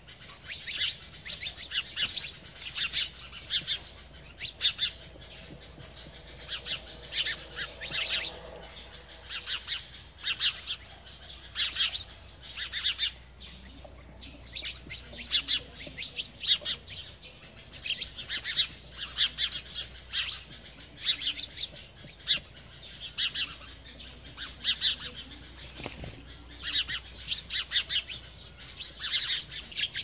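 A flock of house sparrows chirping as they feed, many short chirps overlapping in quick, irregular succession.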